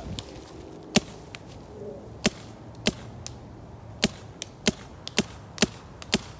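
Empire Axe 2.0 paintball marker firing single shots: about eight sharp pops, spaced roughly half a second to a second apart, with a few fainter ticks between them.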